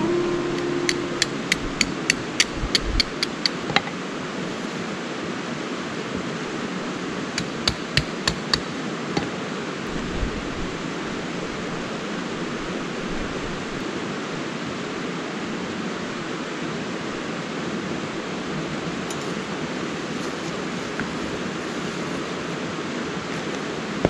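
Tent stakes being hammered into stony ground: a quick run of about a dozen sharp, evenly spaced blows, then a few more several seconds later. Steady river noise runs underneath.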